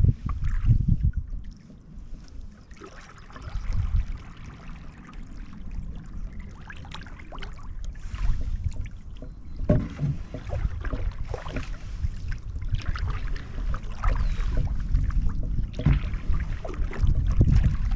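Canoe paddle strokes: the blade pulling through the water, with splashing and dripping, while gusts of wind rumble on the microphone.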